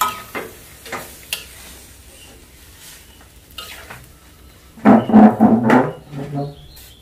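Metal spatula scraping and knocking against an aluminium wok while stir-frying vegetables, over a faint sizzle. A few short strokes come early, then a louder run of scraping about five seconds in.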